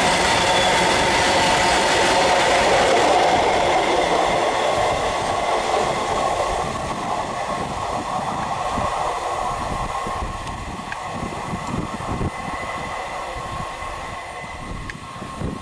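Freight train of BOXN open wagons rolling past at close range: wheels rumbling on the rails, with a steady high ring over the rumble. About halfway through the sound fades as the brake van passes and the train draws away.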